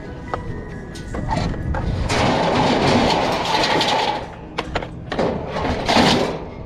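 Scrap being pulled about and torn apart by hand: scattered clicks and knocks, then a long rough scraping, rustling burst about two seconds in and a shorter one near the end.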